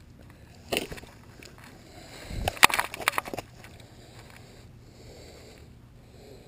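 Handling noise from unhooking a grass carp by hand on grass beside a landing net: a short burst of rustling about a second in, then a louder cluster of knocks and rustles from about two to three and a half seconds in.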